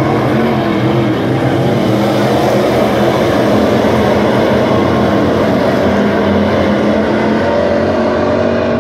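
A field of dirt late model race cars racing around a dirt oval. Their V8 engines make a loud, steady drone of several overlapping engine notes.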